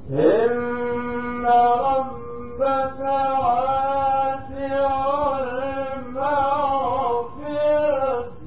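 Male Quran reciter's voice in melodic mujawwad recitation: long held notes with wavering, ornamented turns, broken by a few short pauses for breath, ending just before the end.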